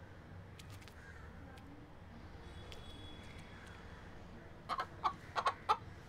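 A rooster clucking: about half a dozen short clucks in quick succession near the end, over faint room tone.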